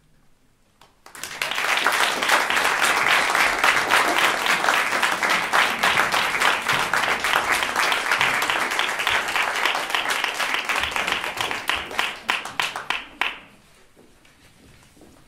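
Audience applause: it breaks out about a second in, holds steady for some ten seconds, then thins to scattered claps and stops near the end.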